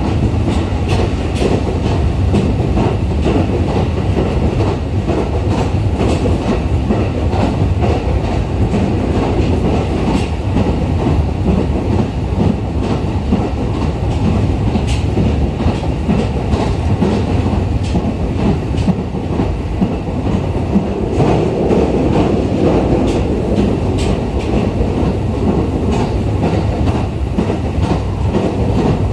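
Running noise heard inside a JR East E501 series electric train car moving at a steady speed: a continuous rumble of wheels on rail, with frequent clicks as the wheels pass over rail joints.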